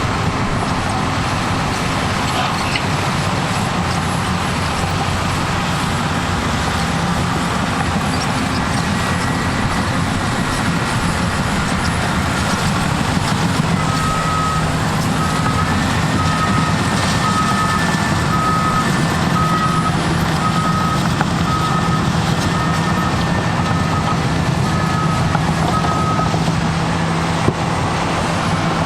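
Cat D6T bulldozer's diesel engine running steadily under work. About halfway in its backup alarm starts beeping, about once a second, as the dozer reverses, and the beeping stops a few seconds before the end.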